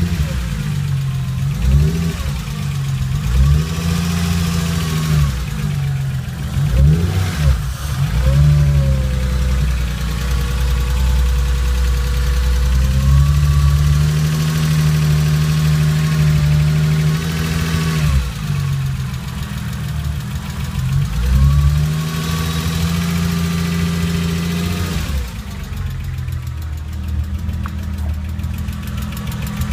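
Porsche 996 flat-six engine running through its first start-up after new tappets were fitted to cylinders 1–3, the tappet noise under check. Its pitch dips and rises again a few times.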